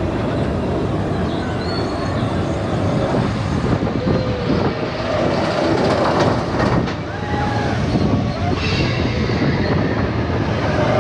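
Expedition Everest roller coaster train running along its track, a continuous rattling rumble.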